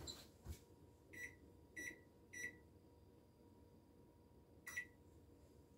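Electric oven control panel beeping as its keys are pressed: three short beeps in quick succession, then a fourth a couple of seconds later, as a six-minute bake time is set.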